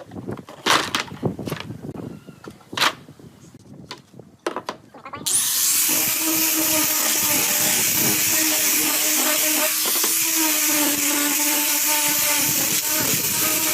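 Scattered knocks and scrapes of wood being handled, then an electric power tool starts about five seconds in and runs steadily with a constant hum.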